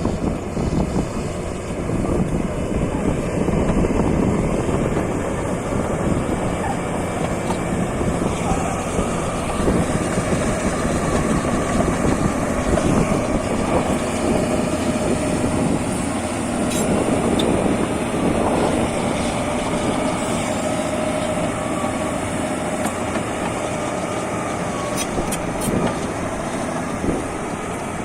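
D255 crawler bulldozer's diesel engine running steadily while working, with a few sharp metallic clinks from the machine partway through and near the end.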